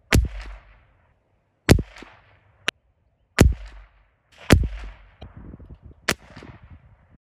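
.22LR rifle firing five shots of SK Rifle Match ammunition, one every second or so, each a sharp crack with a short tail. A few lighter clicks fall between the later shots.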